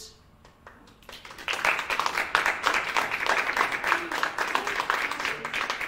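Audience applauding, starting about a second and a half in and going on for about four seconds.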